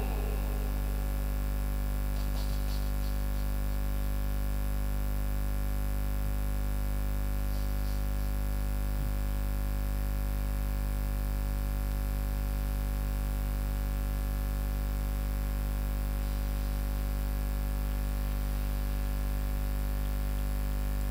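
Steady electrical hum from a stage sound system: a low buzz with a ladder of evenly spaced overtones that holds at one level throughout, with a few faint ticks about two and a half and eight seconds in.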